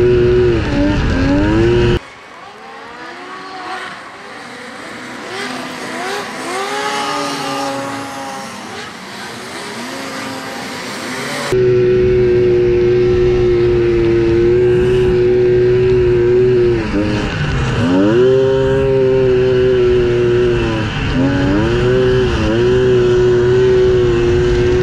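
Two-stroke racing snowmobile engine heard from onboard, held at high revs with brief dips and climbs back up as the throttle is eased and reapplied. For about ten seconds from two seconds in, a quieter stretch with several snowmobile engines rising and falling in pitch.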